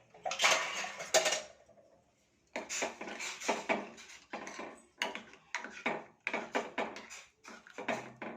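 Metal kitchen utensils clattering against a pot: a cluster of sharp clatters in the first second or so, then, after a short pause, a run of quick clinks and taps about three a second.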